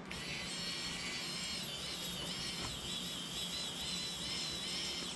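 Electric precision screwdriver running as it drives a screw into a drone's prop guard: a high, steady whine that wavers slightly in pitch under load, starting and stopping abruptly.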